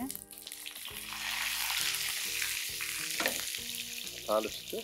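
Curry leaves sizzling and spattering in hot oil in a frying pan, along with mustard seeds and urad dal already in the tempering; the sizzle swells about a second in and keeps up. Soft background music underneath.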